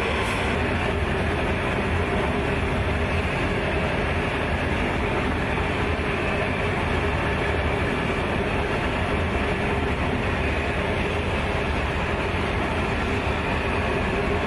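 Steady low mechanical rumble with a faint steady hum, from heavy military THAAD missile launcher trucks running by a cargo plane.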